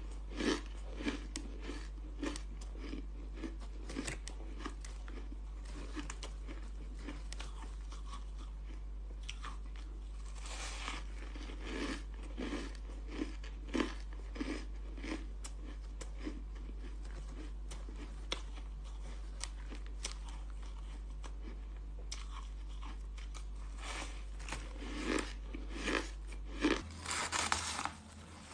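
Close-up crunching and chewing of compacted powdery ice: irregular crisp crunches as bites break off and are chewed, in bouts with quieter gaps. A steady low hum sits underneath.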